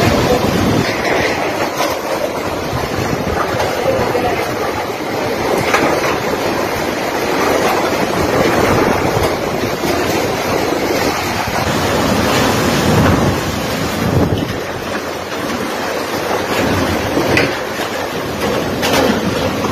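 Typhoon wind and driving rain: a loud, continuous rush that surges and eases with the gusts, with wind buffeting the microphone.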